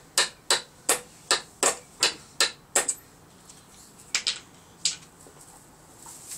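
Metal hammer driving a nail into wood: a run of about nine sharp, evenly spaced blows, roughly three a second, then a pause broken by three scattered taps.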